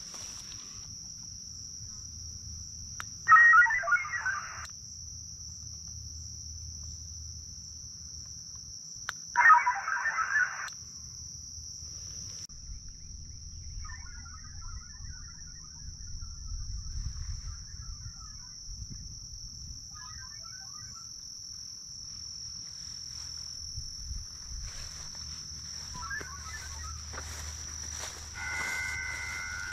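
Xiegu X6100 HF radio playing Winlink digital-mode data tones through its speaker, cut off sharply above and below like radio audio. There are two loud bursts of about a second each, some six seconds apart, fainter warbling data tones after them, and two steady tones near the end. Under it all is a steady high insect buzz.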